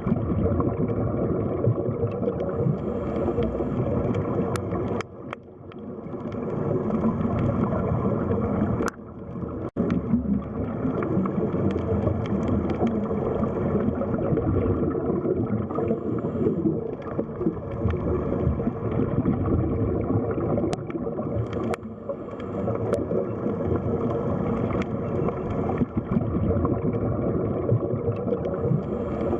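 Underwater sea ambience: a steady, muffled rush and gurgle of water, dipping briefly about five and again about nine seconds in, with a few faint clicks.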